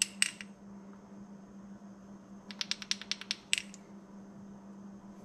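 Light metal clicks from a Briggs & Stratton Vanguard piston and connecting rod being turned over in the hands: a couple of clicks at the start, then a quick run of about eight clicks around the middle. A steady low hum runs underneath.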